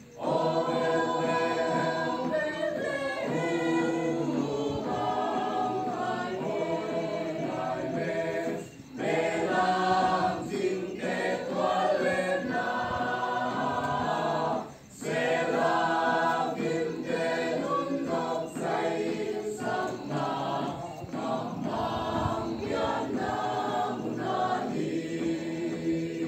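A small mixed choir of men, women and a child singing together from song sheets, with two brief breaks between phrases about nine and fifteen seconds in.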